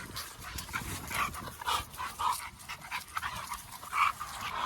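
Large bully-breed puppies making short, irregular sounds as they play over a stick, several in a few seconds.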